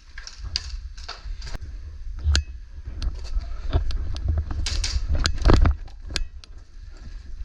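Irregular sharp clicks and knocks, some with a short scuffing rustle, over a steady low rumble.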